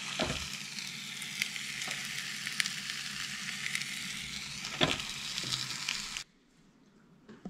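Whole dorado sizzling on the hot plates of a Tefal OptiGrill contact grill: a steady hiss with scattered crackling pops. It cuts off suddenly about six seconds in.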